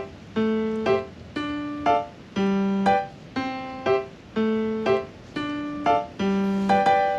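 Background music: a short melody of struck, piano-like notes repeating about every two seconds, about two notes a second.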